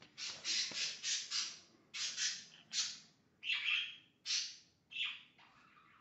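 Pet parakeets chattering: a run of about a dozen short squawky calls, quick and close together at first, then more spaced out and fading toward the end.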